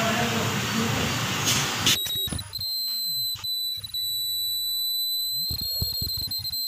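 Ultrasonic tube sealing machine running: steady air and mechanical noise for about two seconds, then the noise drops away and a steady high-pitched whine holds for the rest.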